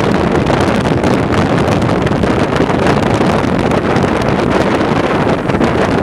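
Steady wind rush on the microphone of a camera moving at highway speed, over road and traffic noise.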